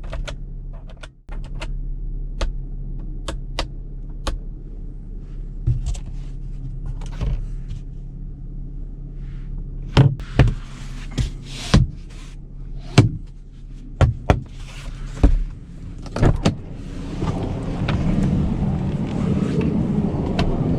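Chevrolet Colorado's 3.6-litre V6 running at low speed with a steady low hum, under a string of sharp knocks and clunks that come thicker and louder in the middle. Near the end a rushing noise of engine and tyres swells up.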